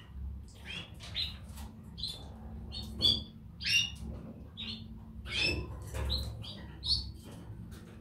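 Canaries giving short, repeated chirps, about two or three a second.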